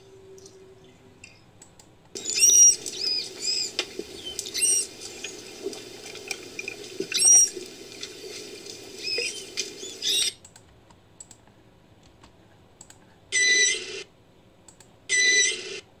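Manatee calls: a run of short, high-pitched chirps and squeaks, each rising and falling in pitch, from about two seconds in until about ten seconds, over a low murky hum, then two short, steady squeals near the end.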